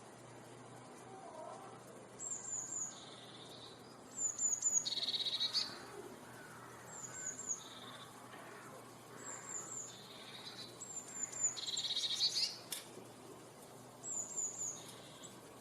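A songbird repeating a short song phrase about six times, roughly every two seconds: three quick, high, slightly falling notes, then a lower rapid trill. A fainter, lower bird call sounds briefly about a second in.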